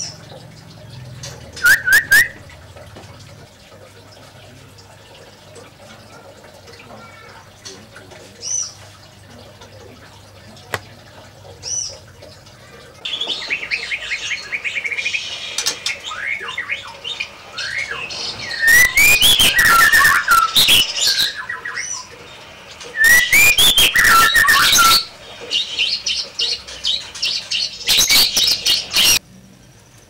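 White-rumped shama (murai batu) singing: a few short calls and high whistles at first, then from about halfway a long, varied song of rapid whistles and chirps, loudest in two bursts near the end.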